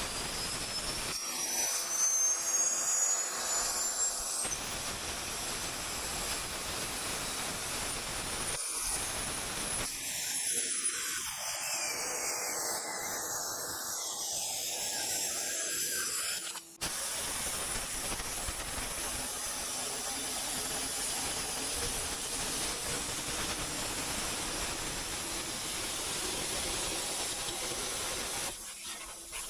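Cutting torch hissing steadily as it cuts through the steel of a tow truck bed.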